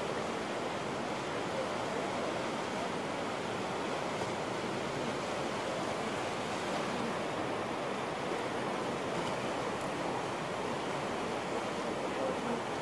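Whitewater rapids on a canoe slalom course, a steady rushing of churning water.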